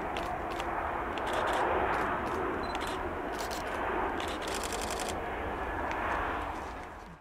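Jet engines of a Saudia narrow-body Airbus airliner landing: a steady rushing noise that swells slightly twice. Sharp ticking clicks run through it, with a quick run of them about four and a half seconds in.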